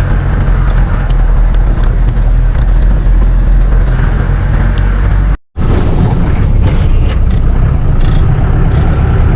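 Four-wheel-drive jeep engine running loud and steady while driving up a rough off-road track, with knocks and rattles over the bumps. The sound breaks off for an instant about five seconds in.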